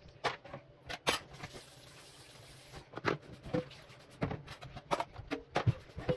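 Dishes and utensils clinking and knocking against each other and the stainless steel sink as they are washed by hand, in irregular clatters with a quiet pause about two seconds in.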